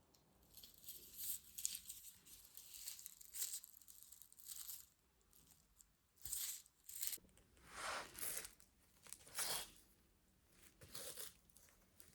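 A series of about a dozen short rasping, tearing-like strokes, each under a second, with short gaps between them.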